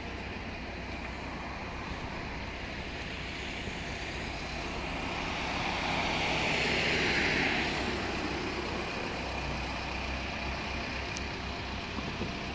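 Steady road-traffic hum with a low rumble. Midway, a road vehicle passes close by: its tyre noise swells and fades over a few seconds.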